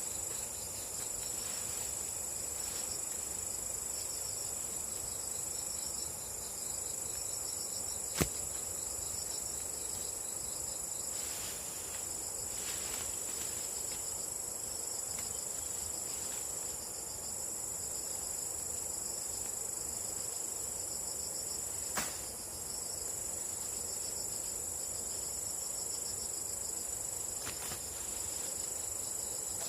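Insects trilling in a steady, high, continuous chorus with a fast pulsing texture. Two sharp clicks cut through it, one about a third of the way in and one about three-quarters of the way in.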